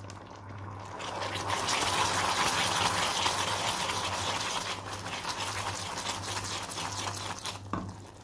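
Hot caramel in a steel saucepan seething and sizzling as a creamy dessert is stirred into it with a wooden spoon. The hiss swells about a second in and dies down near the end.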